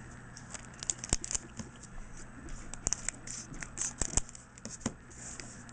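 Pokémon booster pack and cards being handled: the foil pack wrapper crinkling, with many short sharp clicks and snaps of the cards.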